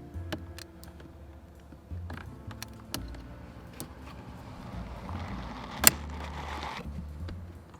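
Plastic shifter trim panel in a 2019 Honda Civic's centre console being pried loose: scattered small clicks and scraping of plastic, with one loud sharp click near the end as a retaining tab lets go.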